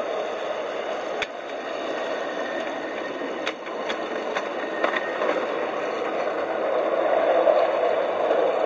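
A 5-inch gauge ride-on miniature train running past on its track: a steady rolling rumble of the wheels on the rails, growing louder as it comes close, with a few sharp clicks along the way.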